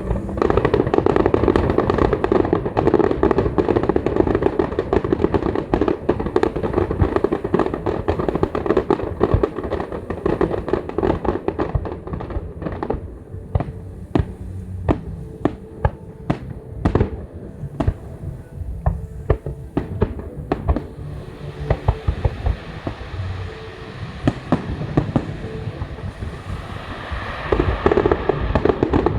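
Fireworks going off in quick succession. Heavy bangs blend together at first; from about halfway there are many sharp separate cracks and crackles, and denser bursts build up again near the end.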